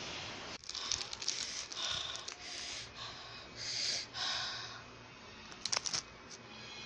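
Plastic wrapper of a strawberry wafer bar crinkling and rustling as it is torn open and the wafer is pulled out, in a run of irregular crackly bursts; a few sharp crackles follow near the end.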